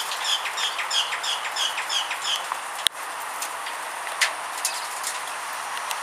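A small aviary parrot giving a quick run of about eight short, high chirps, roughly three a second, which stops after about two and a half seconds. A sharp click follows, then a few faint ticks.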